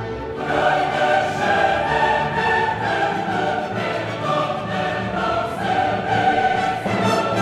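Background choral music with orchestra: a choir singing sustained notes over strings, swelling up in the first half second and then holding steady.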